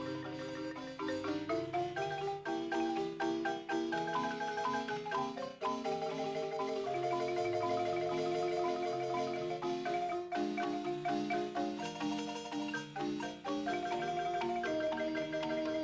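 Instrumental Mexican folk music: fast, repeated struck notes carrying a melody over a moving bass line.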